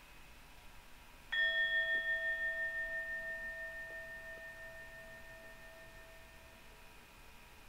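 A meditation timer's bell chime, struck once about a second in and ringing out with a wavering pulse as it fades over about five seconds. It marks the end of a three-minute chakra interval.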